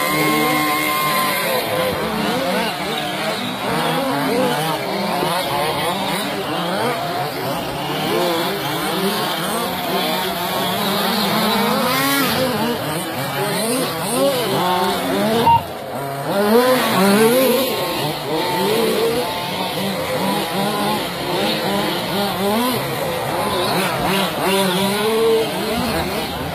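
Several radio-controlled racing trucks' small engines revving up and down at once, their pitches rising and falling as they race.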